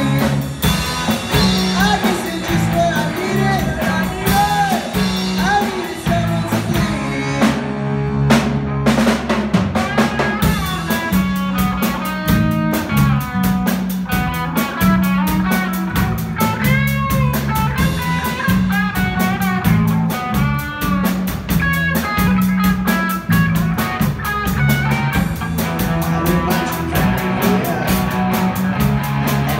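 Live rock band playing: electric bass, electric guitar and drum kit, with the cymbals dropping out for a short break about seven seconds in, marked by a couple of single hits.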